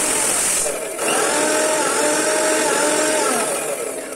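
Electric mixer grinder running with its small steel jar, grinding poppy seeds into paste. It stops briefly just under a second in, starts again with a rising whine, runs steadily, then winds down near the end.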